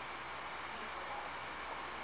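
Steady hiss of background noise, even and unchanging, with no distinct clicks or other events.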